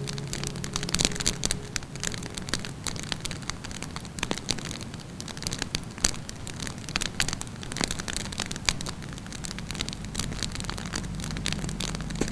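Wood fire crackling in a fireplace: a rapid, irregular run of sharp pops and snaps over a soft hiss.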